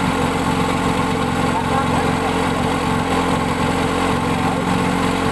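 An engine running steadily at an even speed, under indistinct voices.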